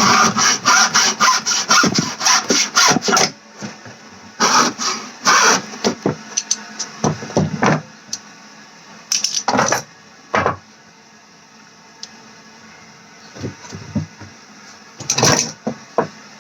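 Hacksaw cutting through a Titleist golf ball by hand: a fast run of back-and-forth strokes for about three seconds, then several shorter bursts of sawing with pauses between.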